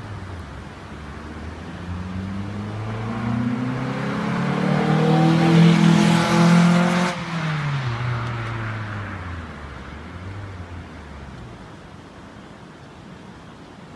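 Toyota Celica 1.8 VVT-i four-cylinder with a Japspeed aftermarket exhaust (dB killer fitted) and a K&N short ram intake, driving past while accelerating. The engine note climbs in pitch and loudness as it approaches, is loudest about six seconds in, then drops sharply in pitch as the car passes and fades away.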